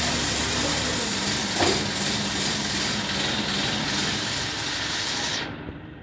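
Heavy machinery engine running steadily under a loud, even hiss. The hiss drops away suddenly near the end.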